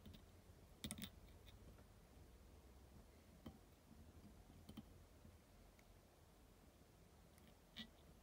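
Near silence with four or five faint, sharp clicks from handling a fly-tying bobbin holder and thread at the vise, a double click about a second in and single ones spread through the rest.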